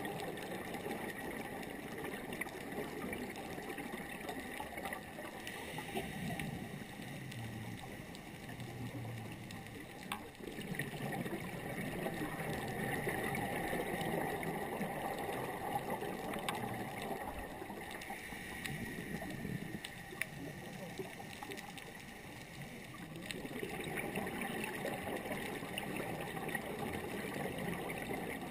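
Underwater ambience heard through a camera's waterproof housing: a steady water hiss and gurgle that swells and fades slowly.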